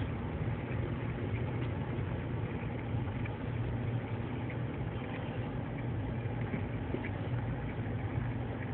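Car engine running with a steady low hum, heard from inside the cabin.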